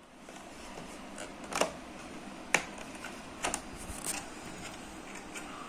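Plastic takeaway sushi trays being handled: a handful of sharp, light clicks over a steady background hiss.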